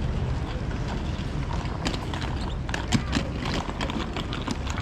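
Outdoor street noise: a steady low rumble, joined about two seconds in by a run of irregular clicks and taps.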